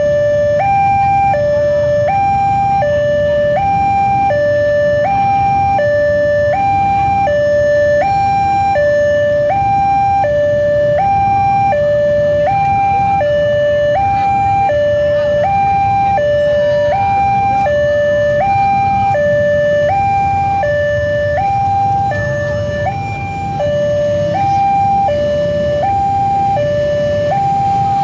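Railway level-crossing warning alarm sounding a steady two-tone hi-lo signal, a higher and a lower tone alternating about every 0.7 seconds, warning that a train is approaching. A low rumble runs underneath.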